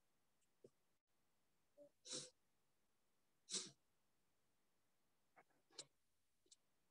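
Near silence, broken by two short breaths close to the microphone about two and three and a half seconds in, and a few faint clicks.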